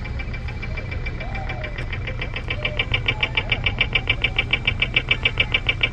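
Pedestrian crossing signal's audible beeper sounding rapid, evenly spaced high beeps, about seven a second, that come in loud about two seconds in, over a steady low rumble of traffic.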